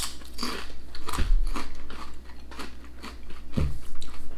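Potato crisps being crunched and chewed, a quick, irregular run of crunches.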